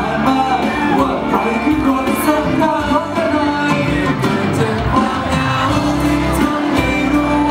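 A man sings a pop song into a handheld microphone over instrumental backing.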